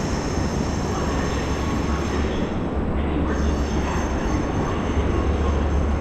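EST building fire alarm sounding: a loud, steady, harsh alarm noise with high whining tones over it that drop out for about a second, around two seconds in. It is a false alarm, set off by construction dust.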